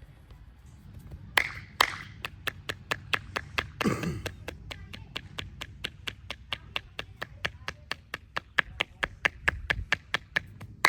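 Percussive massage strokes: a masseur's hands slapping in quick succession, about four sharp claps a second, after two louder strikes near the start.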